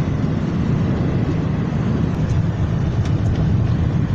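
Steady wind and road noise heard inside a moving car's cabin, mostly low in pitch, as strong gusts buffet the car.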